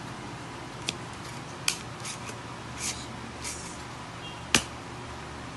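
Edsyn DS017LS Soldapullt desoldering pump being worked by hand: several light plastic clicks and short rustles as its plunger is handled, then one sharp, louder click near the end.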